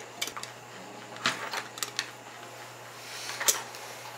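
Aluminium moka pot being handled and screwed together: a scattering of light metallic clicks and knocks, the loudest about three and a half seconds in.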